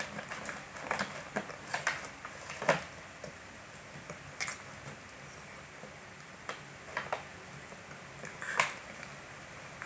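A dog working at a plastic water bottle with its mouth, chewing at the cap: irregular clicks and knocks of plastic, the sharpest a little under three seconds in and another near the end.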